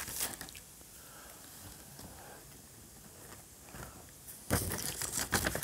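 Faint room hiss in a pause, then a short run of soft clicks and rustles about four and a half seconds in.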